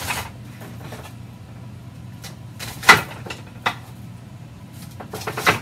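Red onion being cut by hand with a kitchen knife over a skillet: a few sharp clacks of knife and onion pieces, the loudest about three seconds in and a quick cluster near the end, over a steady low hum.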